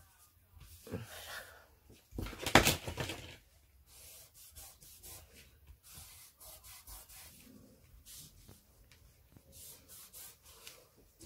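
A cloth rubbing over card stock in short, scratchy strokes, with the card being handled. A louder, noisy rustle comes about two to three seconds in.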